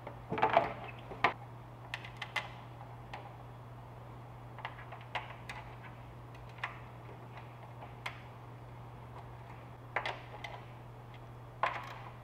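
Plastic intercooler shroud of a Mazdaspeed 3 set down over the intercooler with a quick run of knocks and rattles about half a second in, then scattered small clicks and taps as it is fitted and secured, with two more short clusters of knocks near the end. A steady low hum runs underneath.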